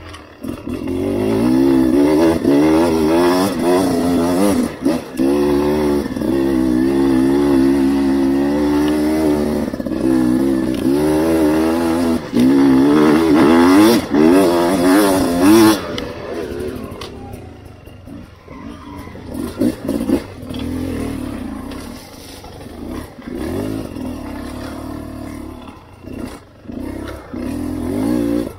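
A 300cc two-stroke enduro motorcycle being ridden hard, the engine revving up and down repeatedly with the throttle. About sixteen seconds in it drops to quieter, lower running with scattered knocks.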